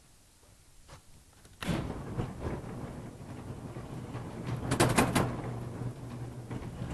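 Writing on a board as a graph is drawn: a scratchy stretch of strokes and scattered taps, with a run of sharp taps about five seconds in. The first second and a half is near silent.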